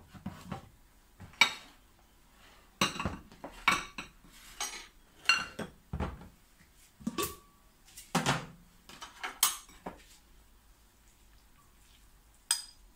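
Kitchen dishes, containers and utensils knocking and clinking as they are moved about and set down on a counter: about ten separate clatters, one with a brief metallic ring, then a quieter stretch near the end.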